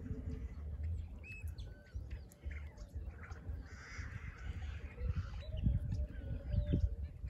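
Wild birds chirping with short whistled calls, and one harsh, rasping call about four seconds in. Underneath, wind rumbles on the microphone, gusting louder near the end.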